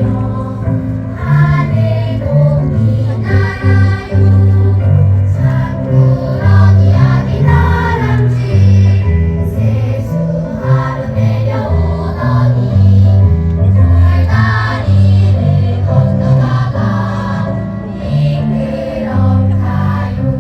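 Children's choir singing a song with instrumental accompaniment, its bass notes moving steadily underneath the voices.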